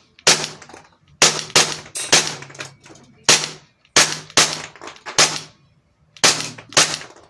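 Green-gas-powered airsoft Glock 18 replica fired on single fire: about a dozen sharp separate shots. They come at an uneven pace of roughly two a second, with a short pause about five and a half seconds in, and each shot has a brief ringing tail.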